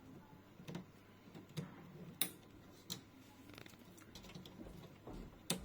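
Wire cutters snipping through a wire, with a handful of sharp clicks spread out, the loudest a little over two seconds in and another near the end.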